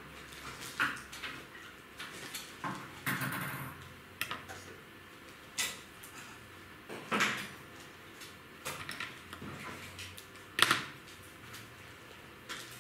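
Irregular clicks and light clatters of small hard objects being handled, about ten spread over several seconds, the sharpest about ten and a half seconds in.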